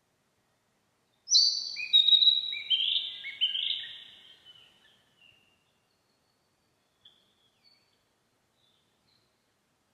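Narcissus flycatcher singing: one phrase of clear, overlapping whistled notes starting about a second in, stepping lower in pitch over about four seconds, followed by two faint short notes.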